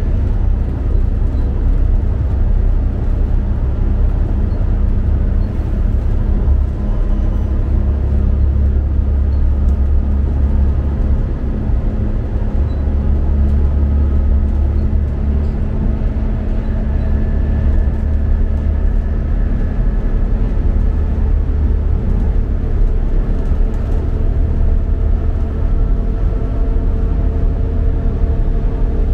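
Inside a diesel multiple unit train running at speed: a steady heavy rumble of engine and wheels on the track, with faint steady whining tones above it.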